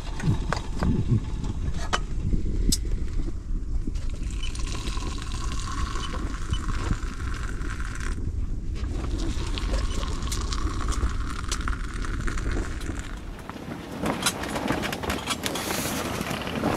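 Hot water poured from a metal kettle into two enamel mugs, one pour after the other with a brief break between, over a steady low rumble that stops shortly before the end. Scattered small clicks and knocks.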